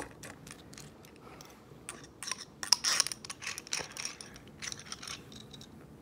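Light clicks and small metallic taps of a pocket hammer multi-tool being handled, coming in scattered bursts that are busiest about halfway through.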